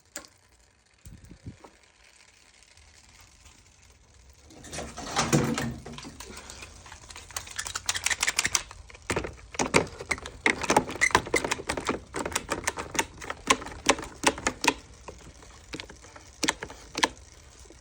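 Hard plastic parts of a Cuisinart coffee maker's K-cup section being forced and worked to make the jammed lid close: a scraping shuffle about five seconds in, then many quick, irregular clicks and rattles.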